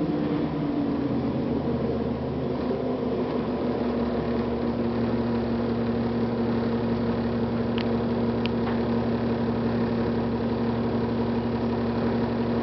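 Cummins ISL inline-six diesel of a 2009 Gillig Advantage transit bus dropping back in the first second or so, then idling steadily. Two light clicks come about eight seconds in.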